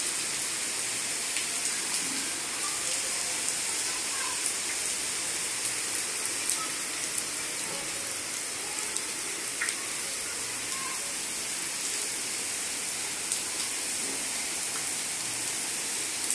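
Steady heavy rain falling on wet ground and a metal gate, with scattered sharper ticks of individual drops.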